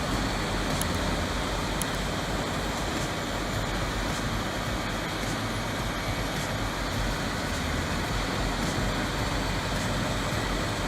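Heavy diesel-powered wood-grinding machine running steadily under load, a dense even mechanical noise.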